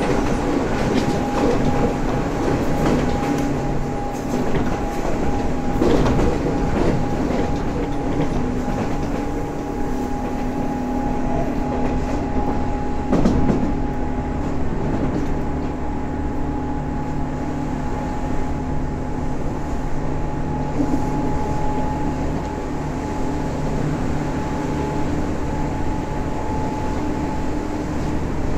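Tobu 9000 series commuter train running, heard from inside the car: a steady rumble with an even electrical whine from the traction equipment (an armature-chopper set), and now and then a knock of the wheels over rail joints.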